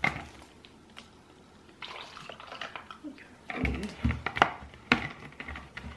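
Plastic lemonade jug being handled: a sharp click as its screw cap is twisted, a short pour of liquid, then knocks and sharp clicks as the jug is put down and its cap handled again.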